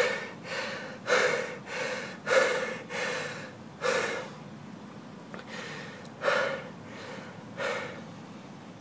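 A man's sharp, forceful breaths close to the microphone, blown into a lump of clay to shape it. Six breaths come about one every second and a half, each loud at first and then fading, with a pause of about two seconds in the middle.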